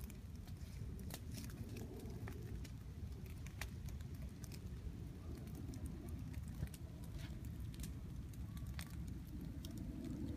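Open fire of cardboard and debris burning, with frequent sharp crackles and pops scattered over a steady low rumble.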